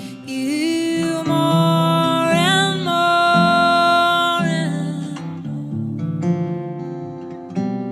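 Worship song: a woman singing long, sliding notes over a strummed acoustic guitar, the voice stopping about five seconds in while the guitar plays on alone.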